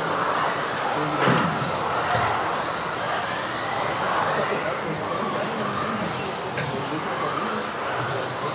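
Several electric 1:10 off-road RC buggies racing, their motors whining up and down in pitch as they speed up and slow down. A single sharp knock comes about a second in.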